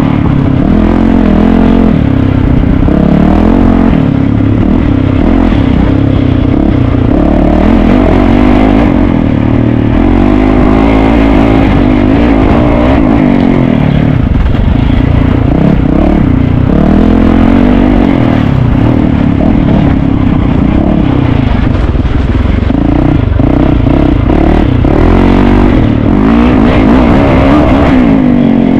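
Dirt bike engine being ridden hard off-road. It revs up and down again and again as the throttle is worked, loud and unbroken.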